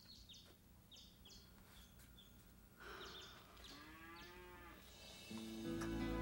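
A cow moos once, a drawn-out call that rises and falls, about three and a half seconds in, over small birds chirping in short quick notes. Soft music fades in near the end.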